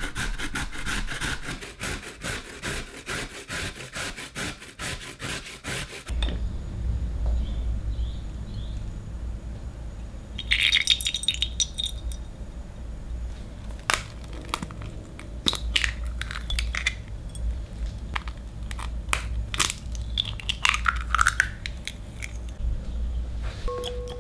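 A carrot is rasped on a stainless steel box grater in rhythmic strokes. The sound changes abruptly about six seconds in to kitchen work with a glass mixing bowl over a low steady hum: oil is poured into the bowl, then a series of sharp clicks and knocks comes as the eggs are cracked.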